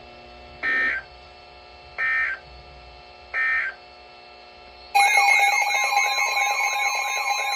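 Three short Emergency Alert System data bursts, the end-of-message code closing the broadcast warning, over a faint steady hum. About five seconds in, a loud alert tone starts and holds: steady tones with a warbling sweep repeating just faster than once a second.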